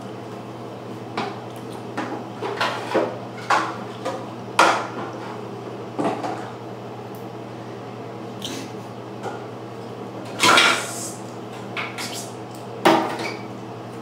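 Baby drumming with a plastic toy shovel on a plastic sand bucket and the bathtub: irregular sharp knocks, about a dozen, with a longer clatter about ten seconds in.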